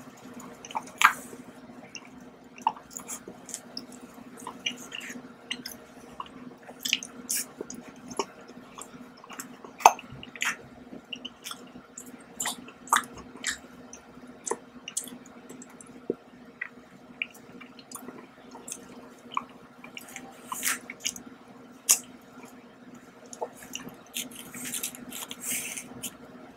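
Close-miked chewing: irregular wet mouth clicks and smacks, a few much sharper than the rest.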